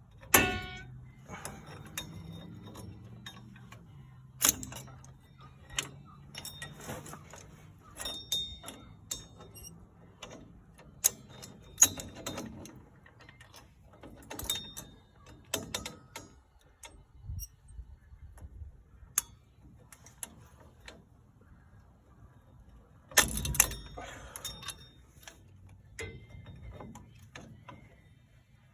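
Irregular metallic clicks and clinks of locking pliers and steel brake springs against rear drum-brake shoes and hardware as a spring is stretched into place, with a louder clatter just after the start and again near the end.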